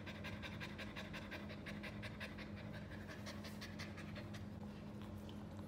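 French bulldog puppy panting quickly and evenly with its tongue out, tired from play.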